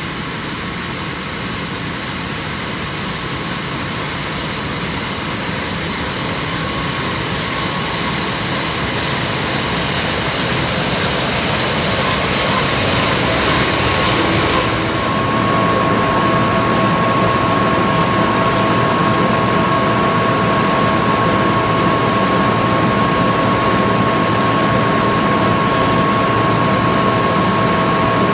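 John Deere six-row cotton picker running while harvesting: a steady machine drone with high whining tones, growing louder over the first half as it comes closer, and a further steady whine coming in about halfway.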